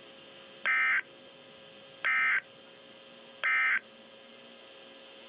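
Emergency Alert System end-of-message code on NOAA Weather Radio: three short, identical buzzy data bursts about a second and a half apart, signalling that the severe thunderstorm warning message is over.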